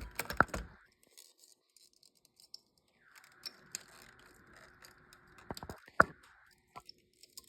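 Clicks and light rattles of the opened plastic handle of a handheld electric saw being handled, its trigger switch and lock-off release being worked. A cluster of clicks comes in the first second and another around six seconds in, the loudest a single sharp click there.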